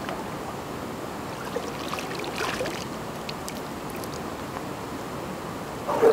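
Metal cooking pots dipped into lake water and filled, with splashing and sloshing over a steady wash of water at the shore, then a few small knocks and a louder knock just before the end.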